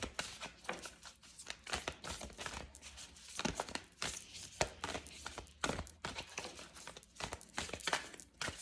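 A deck of tarot cards being shuffled by hand: a run of irregular, crisp clicks and rustles as the cards slide and tap against each other.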